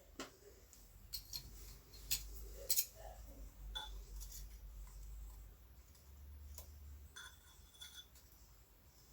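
Scattered light clicks and taps of kitchen utensils and dishes being handled, sharpest about two and three seconds in.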